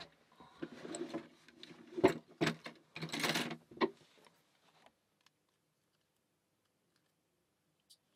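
Small metal lock parts being handled while a challenge lock is taken apart: a few sharp clicks and a short scraping rattle in the first four seconds, then near silence.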